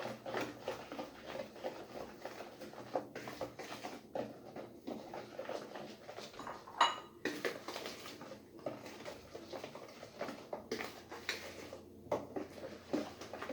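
A utensil stirring semolina into batter in a mixing bowl, with irregular scrapes and small clinks against the bowl and one ringing clink about seven seconds in.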